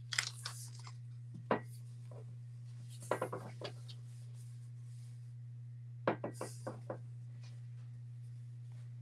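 Short clusters of light clicks and taps from handling small objects on a work table: a few near the start, a single sharp one about a second and a half in, and quick runs of four or five about three and six seconds in. A steady low electrical hum underlies them.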